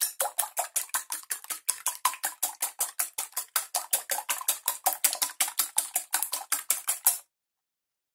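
Wire whisk beating eggs in a glass bowl: a fast, even clicking of the wires against the glass, about six strokes a second, that stops suddenly about seven seconds in.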